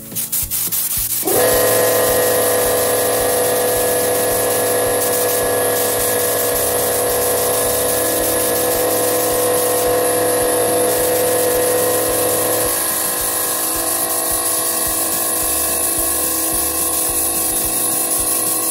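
Paint spray gun starting about a second in and running steadily, a continuous hiss with a steady machine tone as it sprays PU varnish. Part of the tone drops away about thirteen seconds in.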